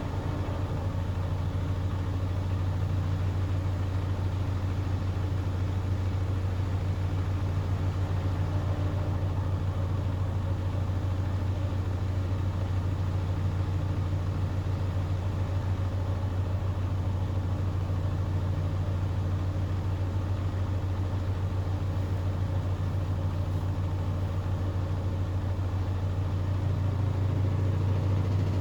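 Hoover Axi 9 kg washing machine running its spin, a steady low hum that grows slightly louder near the end.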